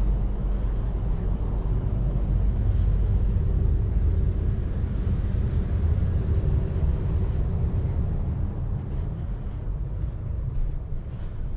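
Low, steady rumble inside the carriage of an Avanti West Coast Pendolino electric train running on the rails, with a faint steady hum over it.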